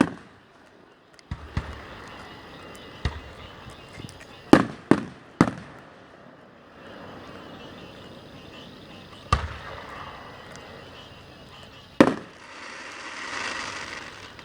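Aerial fireworks exploding overhead: a string of sharp booms at uneven intervals, three coming close together around four to five seconds in, with a swelling hiss near the end.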